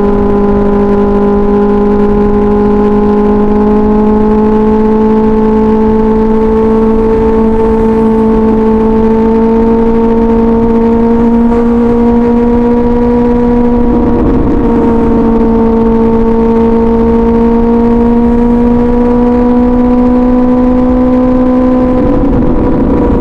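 Kawasaki ZX-6R 636 cc inline-four through an SC Project exhaust, held at steady mid revs under light throttle, the pitch creeping slowly upward. The note roughens briefly about two-thirds of the way through and breaks again near the end.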